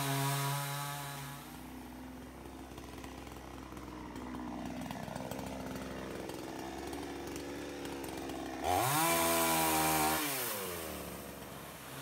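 Two-stroke chainsaw revving high, then dropping back to a lower running speed for several seconds. About nine seconds in it revs hard again for about two seconds, then falls back.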